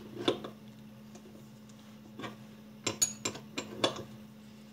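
Two open-end steel spanners clinking against each other and against a CNC router spindle's collet nut while the nut is being tightened on a newly fitted cutter: a few scattered metallic clicks, with a quick run of them about three to four seconds in, over a faint steady hum.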